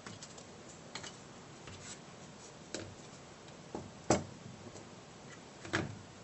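A handful of light clicks and knocks from small laser-cut plywood parts and hand tools being handled on a tabletop. The loudest knock comes about four seconds in and another near the end.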